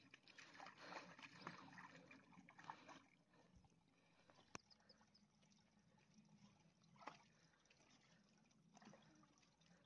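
Faint trickling of a small rocky stream, a little livelier in the first few seconds, with a single sharp tick about halfway through.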